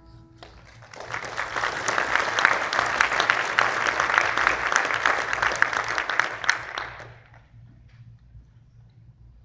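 The last held notes of violin and piano ring out briefly, then an audience applauds with dense clapping that builds within a second and dies away about seven seconds in.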